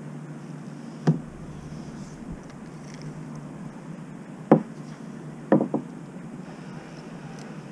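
Sharp knocks of fishing gear being handled on a kayak: one about a second in, a louder one about four and a half seconds in, and a quick pair a second later. A steady low background noise runs underneath.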